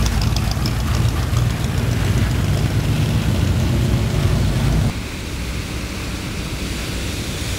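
Outdoor street ambience: a steady low rumble, like traffic and wind on the microphone, that drops abruptly to a quieter hiss about five seconds in.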